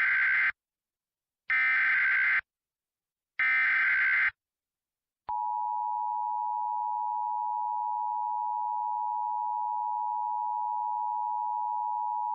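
Emergency Alert System SAME header: three roughly one-second bursts of buzzy digital data tones, then the EAS two-tone attention signal starts about five seconds in and holds steady, marking the start of a new warning message.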